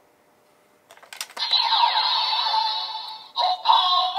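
Kamen Rider Gotchard toy transformation belt: Ride Chemy cards click into its slots about a second in, then the belt plays loud electronic standby music and effects. Near the end its recorded voice calls out "Hopper 1".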